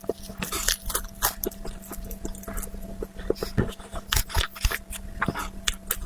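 Close-miked chewing and mouth sounds of someone eating a chocolate dessert: an irregular run of wet clicks and crunches, over a faint steady hum.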